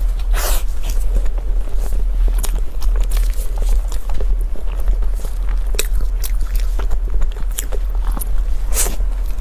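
Close-up eating sounds: crisp bites and chewing, many short crunchy clicks at an uneven pace, over a steady low hum.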